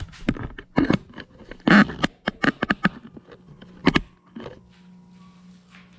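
Handling noise on a workbench: a quick run of knocks, taps and clatters, the loudest near the middle and about four seconds in, then a quieter stretch with a faint steady hum.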